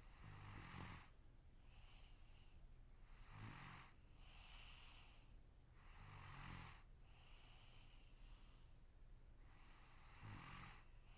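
A sleeping person snoring faintly: four snores about three seconds apart, each with a low rattle, and a softer breath between each pair.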